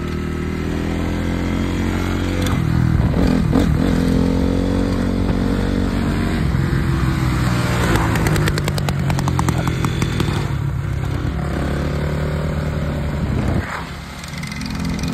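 Honda CRF dirt bikes' single-cylinder four-stroke engines running on the road, the pitch rising and falling as they are revved, one of them the carbureted 2007 CRF450. The engine sound drops off briefly near the end, then picks up again.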